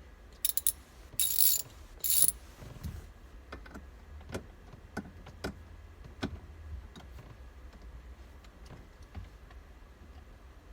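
A ratcheting hand tool clicking as it works a T30 Torx screw loose behind a steering wheel. Three short bursts of rapid ratchet clicks come in the first two seconds or so, then scattered single clicks and knocks as the tool is repositioned.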